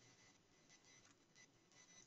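Near silence: a faint background hiss.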